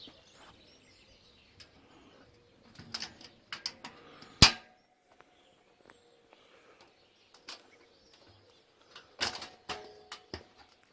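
A few scattered knocks and clicks over a quiet background, the loudest a single sharp knock about four and a half seconds in, with a quick cluster of clicks near the end.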